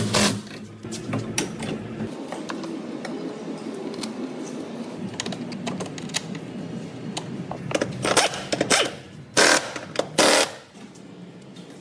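Clatter and knocks of tools on metal during car shock absorber work, with a few loud bangs near the end, over a steady low hum.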